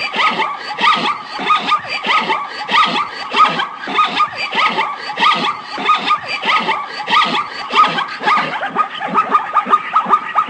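Zebra calling: a long run of rapid barking yelps, about three a second.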